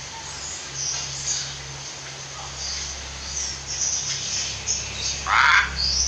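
Hill myna calling in its cage: faint high chirps, then one short harsh call about five seconds in, over a low steady hum.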